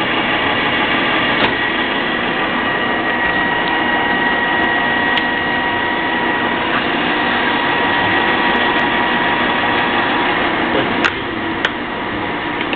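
Mazak engine lathe running with the spindle turning: a steady mechanical whir from the headstock gearing, with several high whining tones over it. A few sharp clicks come through, the loudest about eleven seconds in, where the running sound drops slightly.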